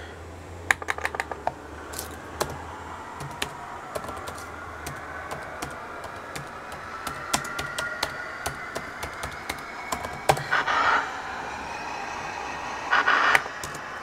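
Irregular clicking of keys being typed on a laptop keyboard, with two short louder noisy bursts near the end.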